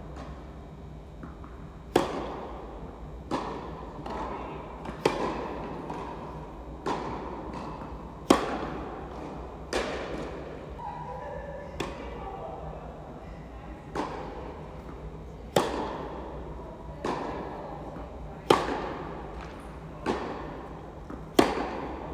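Tennis balls struck by rackets in a baseline rally, a sharp pock about every second and a half with the loudest strikes every three seconds or so, each ringing on in the reverberant indoor hall.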